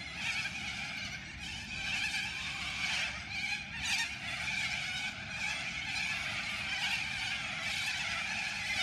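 A large flock of little corellas screeching and chattering together in a dense, continuous chorus, with a few louder shrieks about three to four seconds in, over a steady low background rumble.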